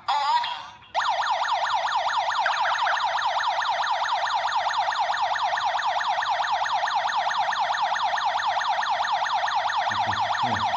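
Siren of a PST-10GDT WiFi/GSM home alarm system in its alarm state, set off by the motion sensor. It starts abruptly about a second in and sounds a loud, fast, evenly repeating rising-and-falling yelp.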